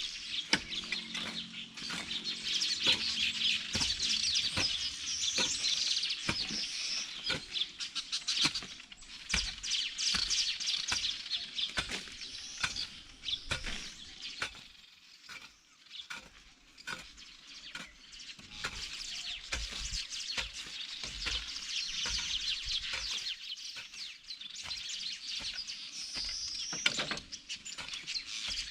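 A dense chorus of many small birds chirping and twittering, thinning out for a few seconds past the middle, with a few scattered low thuds.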